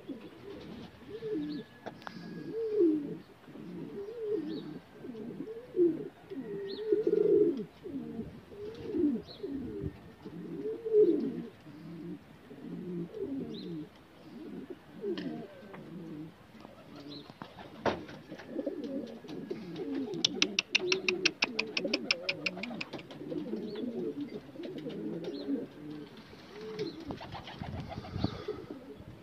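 Domestic pigeons cooing close by, one low, rolling coo after another. Past the middle, a rapid clatter of about nine taps a second lasts some three seconds.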